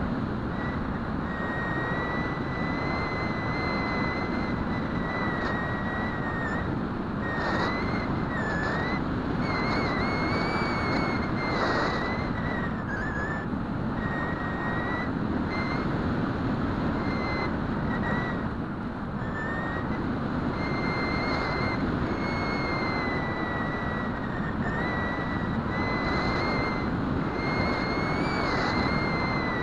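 Bixler RC plane's electric motor and pusher propeller whining steadily in flight, heard from the onboard camera over a constant rush of wind. The whine's pitch wavers slightly and dips briefly a few times.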